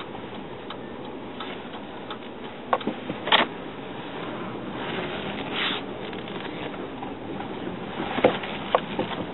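Vehicle cabin noise as it moves slowly over a rough dirt lot. A few irregular clicks and knocks come about three seconds in and again near the end.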